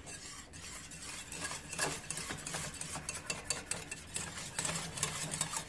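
Wire whisk beating a thick sauce in a saucepan, its wires clicking and scraping against the pan in quick, irregular strokes.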